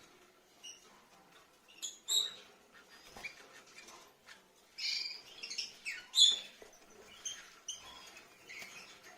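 Rosy-faced lovebirds chirping: scattered short, high chirps and squeaks, loudest about two seconds in and again about six seconds in.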